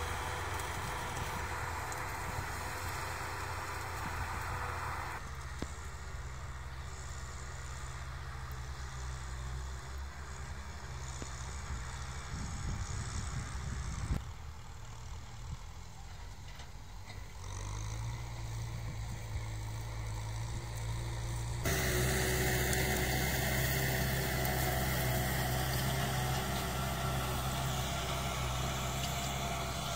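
Kubota farm tractor's diesel engine running steadily under load while pulling a plough through dry soil. Its sound changes abruptly a few times and is loudest in the last third.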